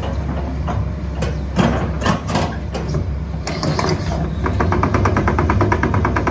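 Kobelco SK135SR-3 excavator travelling on its steel tracks, its diesel engine running underneath. Irregular squeaks and clanks from the track links settle, about four and a half seconds in, into a fast, even clatter.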